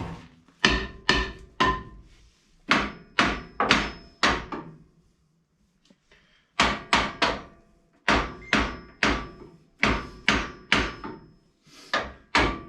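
Hammer blows on the truck's stock front axle, struck again and again, about two to three a second with a short pause near the middle, to knock it free where it hangs up on the mounting bolts.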